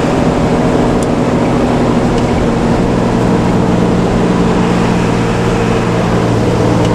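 Bus diesel engine running under way, a steady, loud drone whose pitch steps down about three seconds in.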